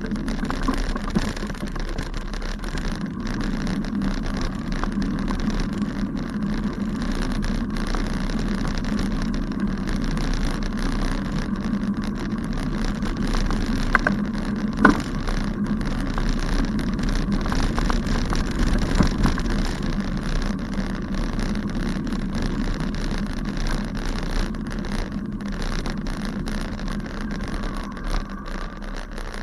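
Bicycle riding over a rough grassy path: a steady rumble of tyres and frame rattle, with two sharp knocks about halfway through.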